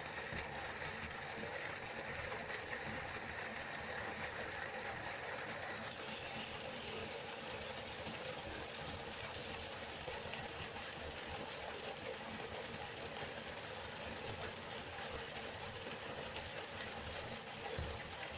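Waterfall: steady rushing of falling water, turning a little brighter and hissier about six seconds in, with a brief low thud near the end.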